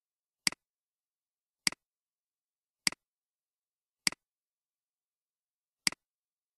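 Five sharp computer mouse clicks, each a press followed at once by a softer release, spaced about a second or more apart with silence between.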